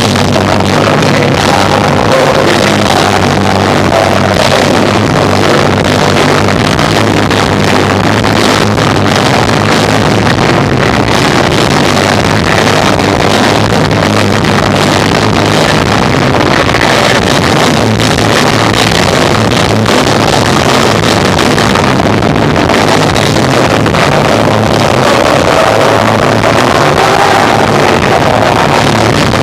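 Live rock band of electric guitar, bass and drums playing loud, recorded through an overloaded microphone so the sound is distorted into a dense, rumbling wash with the bass notes showing through.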